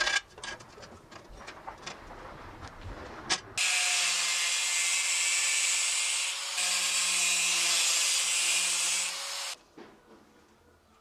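A file scraping in a small slot in a brass plate, in faint irregular strokes. About three and a half seconds in, a small power tool starts cutting the brass sheet with a loud, steady hiss and a low hum. It runs about six seconds and stops abruptly.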